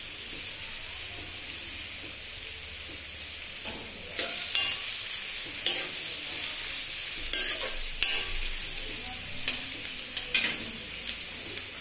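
Chopped onions sizzling in hot oil in a metal kadhai. From about four seconds in, a metal spatula scrapes and knocks against the pan several times as the onions are stirred toward brown.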